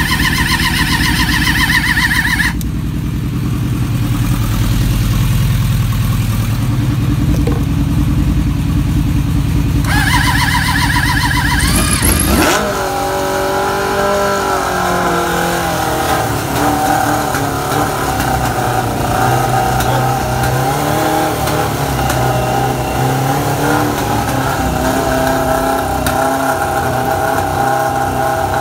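Suzuki GSX600F inline-four motorcycle engine on a hard cold start, its plugs having been fuel-soaked: the electric starter cranks with a whine, then a stretch of low uneven running without the whine, then a second burst of cranking. About twelve seconds in the engine catches, revs up briefly, then settles into a steady idle.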